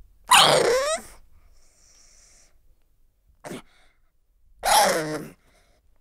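Pug dog giving two short, pitched cries, each under a second and about four seconds apart, with a brief sharp snort-like sound between them.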